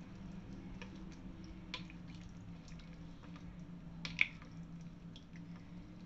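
A spoon stirring soup in a bowl, with light clinks against the bowl, the sharpest about four seconds in, over a steady low hum.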